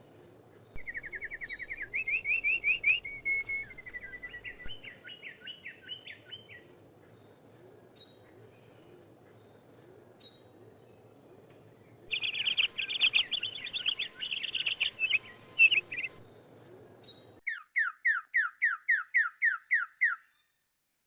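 Songbirds singing: fast chirping trills, then a loud dense burst of chirps, and near the end a run of about a dozen quick down-slurred notes, roughly four a second.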